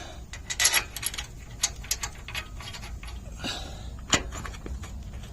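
Loose metal brake hardware clinking and rattling as the caliper bolts are handled. There is a run of light clinks in the first three seconds, and the sharpest clink comes about four seconds in.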